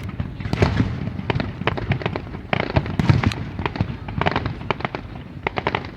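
Aerial fireworks display: a dense, irregular run of sharp cracks and crackling reports, with heavier low booms about half a second in and again around two and a half to three seconds in.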